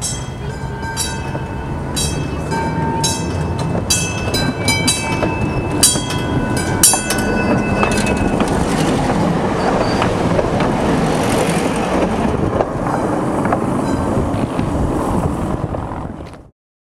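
TTC PCC streetcar No. 4600 rolling along the track and passing directly over the microphone. As it approaches there is a run of sharp clicks with ringing tones. A dense rumble of wheels and running gear builds and is loudest about eight to twelve seconds in. The sound cuts off suddenly near the end.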